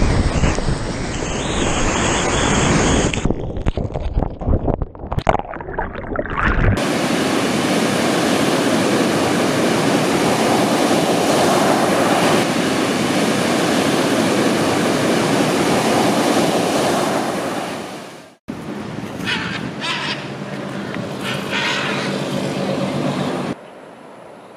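Ocean surf: a rumbling rush of water and wind at first, then a steady rush of breaking waves that cuts off suddenly about eighteen seconds in. Quieter surf follows, and it drops lower again near the end.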